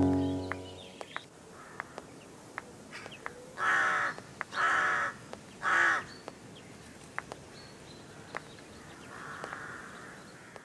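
A music chord dies away in the first second. Then a crow caws three times, harsh calls of about half a second each, about a second apart, with faint scattered clicks in between.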